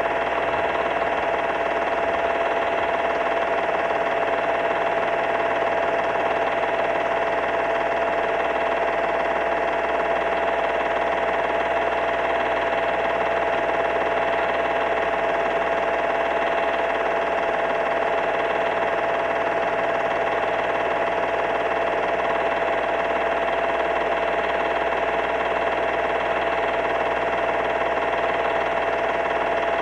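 Steady whir and hum of a home-movie projector running: an even mechanical noise with a constant tone through it, unchanged throughout.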